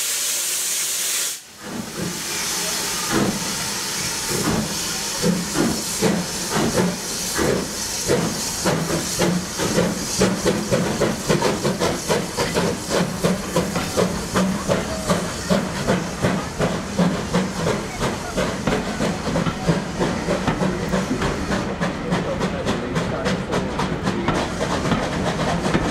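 Loud hiss of steam from the steam tank locomotives Metropolitan No. 1 and prairie tank L150, cutting off after about a second and a half. Then the double-headed engines pull away, their exhaust beats quickening, and the coaches roll past with a steady rhythmic clatter.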